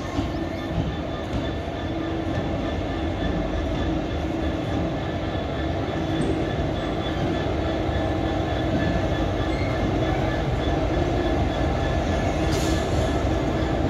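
Class 66 diesel-electric locomotive's two-stroke V12 engine running as it hauls a train of tank wagons past, a steady hum that grows louder as the locomotive draws level.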